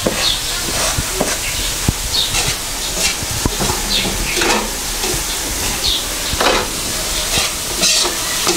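A metal ladle scraping and stirring around a metal wok in repeated strokes about every half second to second. Underneath, chili peppers and shrimp fry with a steady sizzle.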